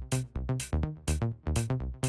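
Background electronic music with a steady, driving beat.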